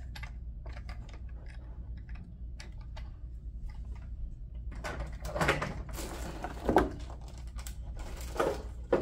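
Light plastic clicks and taps, then clear plastic packaging crinkling and rustling as it is lifted and handled, in several louder crackles.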